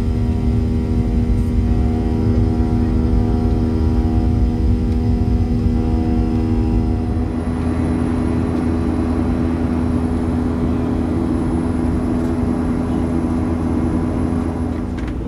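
Jet airliner engine noise heard inside the cabin during the climb: a loud, steady drone over a low rumble, with a few steady tones. About seven seconds in, the higher tones fade and a rougher rushing noise grows.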